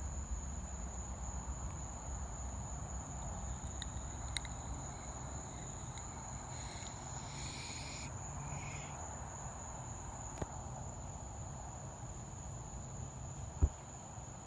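Night insect chorus, crickets, holding one steady high-pitched trill, over a low steady rumble. A single sharp knock near the end.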